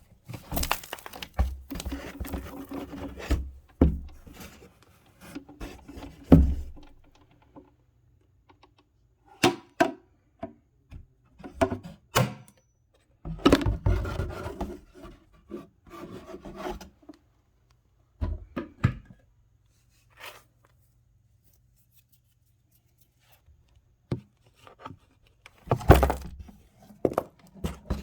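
Intermittent handling noises: scattered knocks, thuds and rubbing or rustling in a small room, in bursts of a second or two with quiet gaps between.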